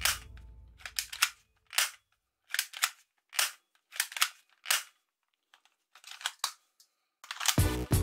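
Sharp mechanical clicks and clacks of a toy airsoft gun being worked, about a dozen single snaps and short doubles spaced irregularly over several seconds. Background music fades out at the start and comes back in near the end.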